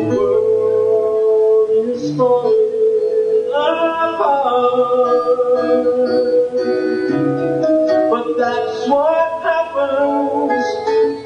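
Live recording of a pop song playing: a melody that slides between notes over held chords, with a singing-like lead line.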